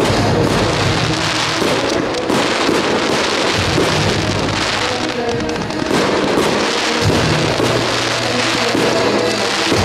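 Fireworks display going off: a dense, continuous crackle of many small pops from gold crackling stars and fountains, with music playing underneath.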